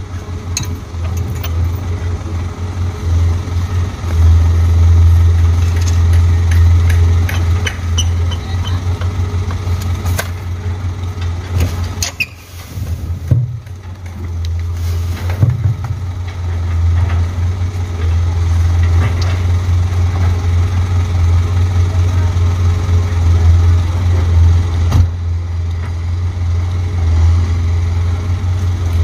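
Dump truck's diesel engine running with a steady low hum that drops away briefly about twelve seconds in, then picks up again. Scattered light clicks and knocks in the first ten seconds.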